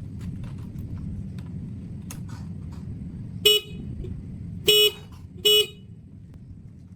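Motorcycle horn sounding three short honks, the second a little longer, over a steady low rumble.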